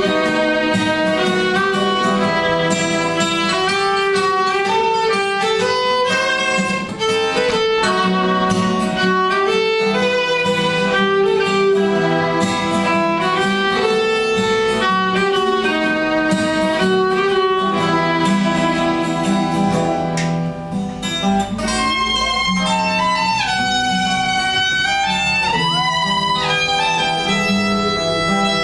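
A violin and an acoustic guitar playing a melodic piece together live, the violin carrying the sustained melody over the guitar's plucked notes. Near the end the violin slides between notes.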